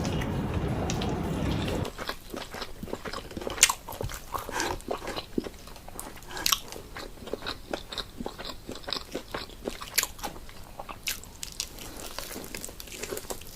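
Close-up chewing and biting, with many short, irregular crunchy clicks: a person eating fried chicken and noodles by hand. A steady background sound cuts off about two seconds in.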